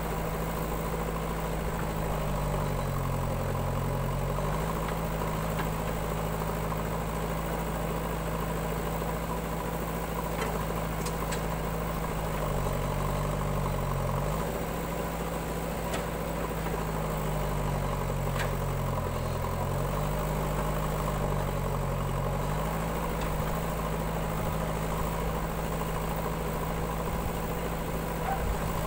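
Diesel engines of a JCB backhoe loader and a farm tractor running. The engine note dips in pitch briefly several times as the backhoe's arm digs under load.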